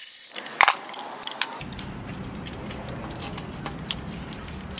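Scattered light clicks and clinks of bolts, tools and the engine's wired electrical panel being handled, the sharpest about half a second in. A steady low hum sets in about a second and a half in.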